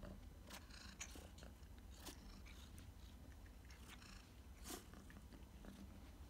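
Near silence with a few faint, brief rustles and sniffs from a kitten nosing at catnip on a carpeted cat tree.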